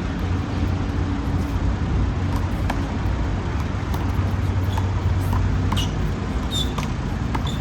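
Steady low rumble of city traffic, with scattered light taps and a few short high squeaks over it.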